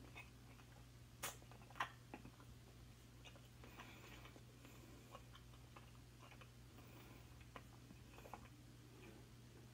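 Near silence with faint mouth clicks and smacks from someone eating an ice cream bar. Two sharper clicks come about a second and a half in, over a faint low hum.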